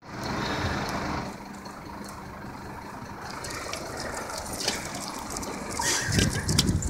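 Street traffic noise with a motor vehicle engine idling nearby, a steady low hum. About six seconds in, a louder low rumble swells up.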